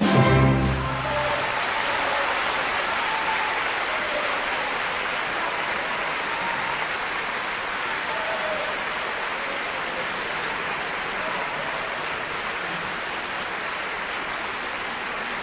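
A theatre audience applauding steadily after a ballet variation, slowly fading. The final chord of the orchestral music sounds briefly at the very start.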